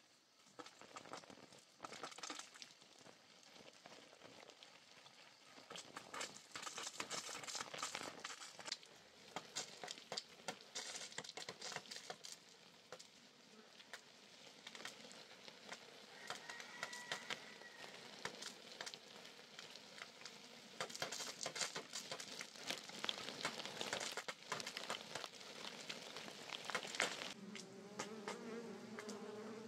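Water spraying from a garden hose and pattering on leafy vegetables, a dense crackle of small drops. Near the end a low insect buzz begins.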